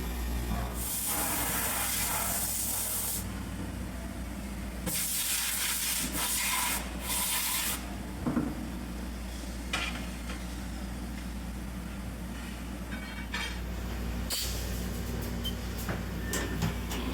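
Haas VF4 CNC vertical mill running through a keyway and deburring job, coolant off, with a steady low machine hum. Two long hissing bursts come about a second in and again around five seconds in, and a run of small clicks and knocks follows near the end.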